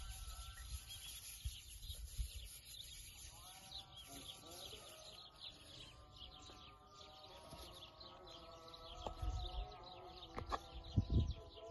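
Small birds chirping continuously, over a faint bed of held tones that drift slowly in pitch. Near the end come a few soft knocks and low thumps as a plastic scraper cuts dough on a wooden board.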